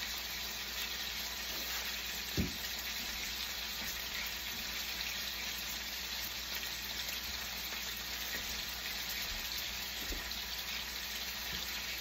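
Thin steaks sizzling steadily in hot oil in a frying pan, with a single knock about two and a half seconds in.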